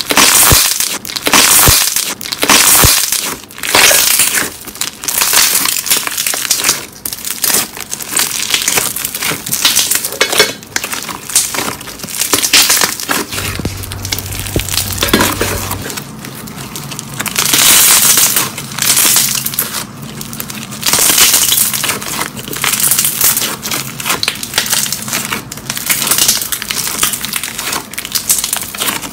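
Thick white slime squeezed and folded by hand, giving dense crackling and popping as trapped air pockets burst. It comes in loud surges every second or two as the slime is pressed.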